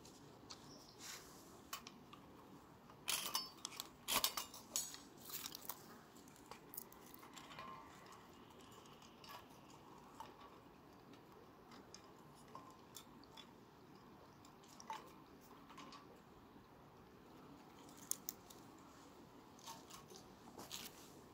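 Dry twigs being handled and stood upright in a small folding steel twig stove: scattered light clicks and knocks of wood on thin metal, busiest about three to five seconds in.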